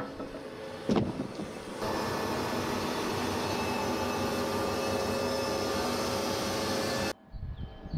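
Wood-Mizer band sawmill running, a steady machine drone with a fixed hum, after a few knocks and a sharp knock about a second in. The drone cuts off abruptly shortly before the end.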